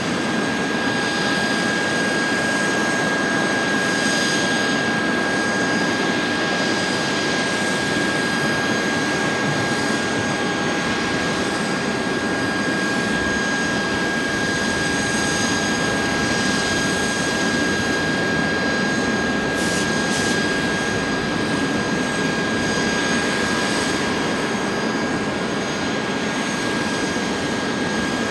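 Boeing 747-400 freighter's jet engines at taxi idle: a steady rush of engine noise with a thin whine held on one pitch.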